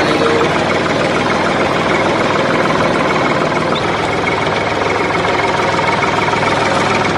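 Mini tractor's engine running steadily with a fast, even chugging, like a diesel tractor ticking over while it drives slowly.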